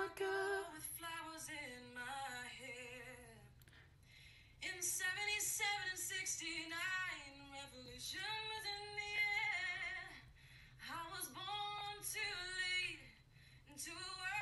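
Recorded song playing: a woman singing unaccompanied, a cappella, in long phrases with held notes, pausing briefly about four seconds in and again near the end.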